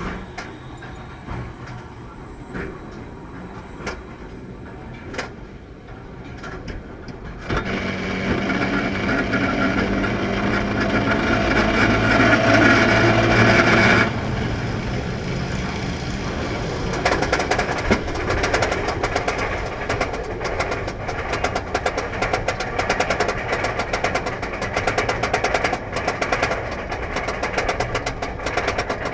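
A roller coaster heard from on board. At first it is quieter, with scattered clicks. About seven seconds in, a loud, steady mechanical hum with held tones sets in and cuts off suddenly halfway through. A rapid, regular clacking follows.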